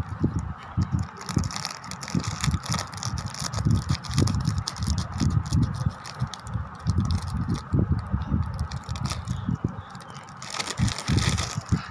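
Handling noise from a makeup kit and its packaging being opened: plastic rattling and crackling, with irregular low thumps of hands close to the microphone.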